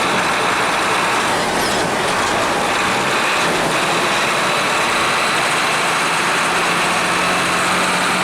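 Hino AK-3 bus engine running steadily as the bus drives, a dense even engine and road noise with a low steady hum that grows stronger near the end.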